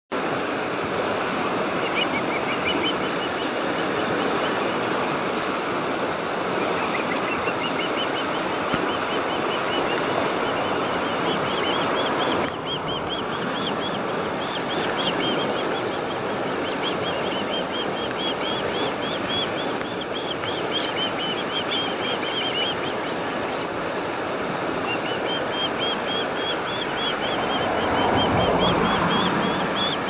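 Ospreys calling in repeated series of short, high chirping whistles over a steady rush of sea surf and wind. The noise swells louder near the end.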